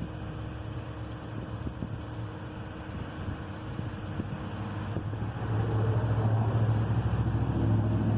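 1979 Chevy Caprice engine cranking over on its starter without catching, a steady low churning that grows louder about five and a half seconds in.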